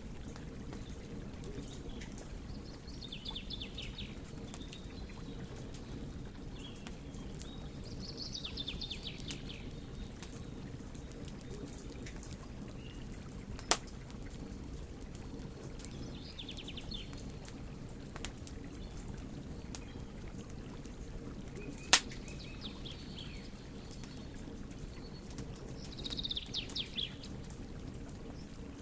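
Wood fire burning with a steady low rumble and frequent small crackles, split by two loud sharp pops. A songbird sings short trills several times in the background.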